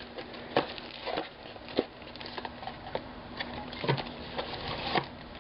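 A puzzle cube's packaging being opened by hand: irregular sharp clicks and taps over soft rustling.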